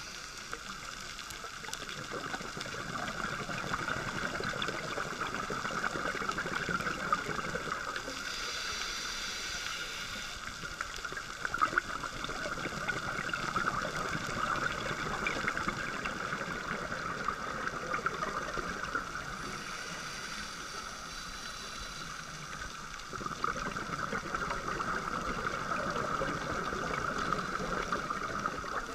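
Underwater ambience picked up by a GoPro in its waterproof housing: a steady watery hiss with bubbling, rising and falling in swells every several seconds.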